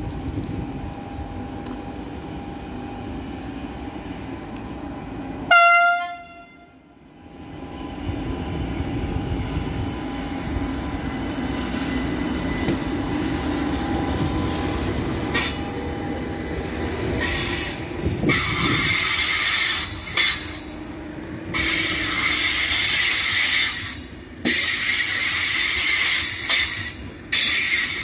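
TGV Duplex Dasye high-speed double unit running into a station. Its horn gives one short blast about five seconds in. From about halfway on there are repeated bursts of high-pitched squealing as it slows along the platform.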